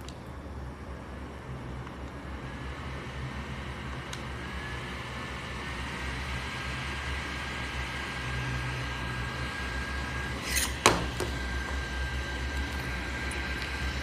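Jisulife neck fan running: a steady rush of air over a thin high motor whine that climbs a little in pitch during the first few seconds, then holds steady. A sharp click about eleven seconds in.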